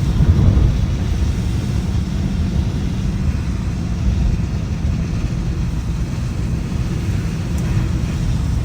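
BMW M5 Competition driving at a steady pace on a rain-soaked road: a steady low rumble of engine and road noise.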